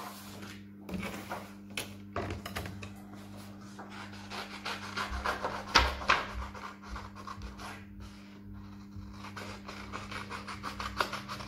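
Sheets of paper rustling and crackling as they are picked up, shuffled and folded by hand, with a dull knock on the table about six seconds in. A steady low hum runs underneath.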